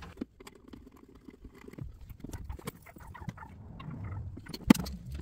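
Hands working on the air-intake tube, engine cover and hoses in an engine bay: a scatter of small plastic clicks and taps, with one sharp knock near the end.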